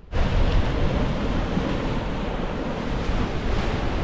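Wind buffeting the microphone over sea waves washing against a rock breakwater, a steady noisy rush heaviest in the lows. It cuts in suddenly right at the start.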